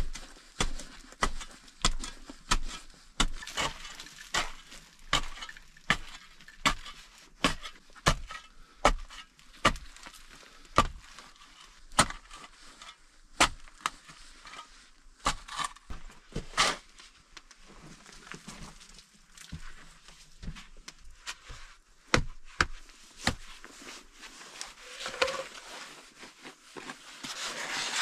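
Axe chopping wood: a steady series of sharp blows about one a second, with a brief scraping, rustling stretch near the end.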